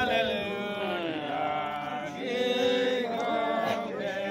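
Voices singing a hymn in long held notes that slide gently in pitch.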